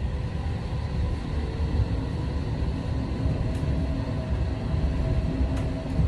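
Steady low rumble of a moving public-transport vehicle heard from inside the cabin, with a faint hum and two faint ticks in the second half.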